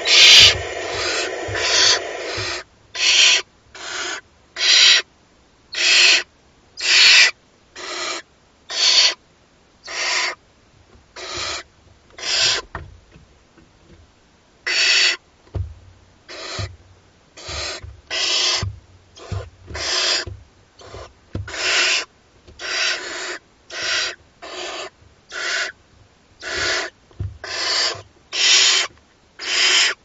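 Barn owl chicks giving their rasping, snore-like hissing calls, the begging call of barn owl nestlings. The hisses come about one a second, overlapping at first, with a short break midway.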